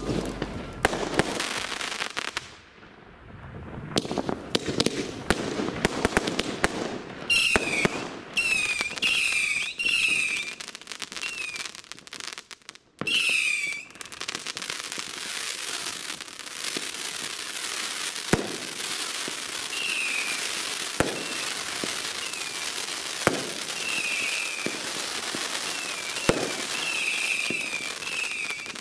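Consumer fireworks going off: a rapid series of sharp bangs and crackling. From about seven seconds in, short falling whistles repeat again and again. In the second half, a dense steady crackle runs under occasional single bangs.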